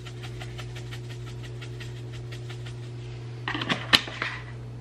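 Spice jar of dried parsley shaken over a mixing bowl: a steady run of light ticks, about six a second, then a few louder clicks and a sharp snap near the end as the jar's red cap goes back on. A steady low hum lies underneath.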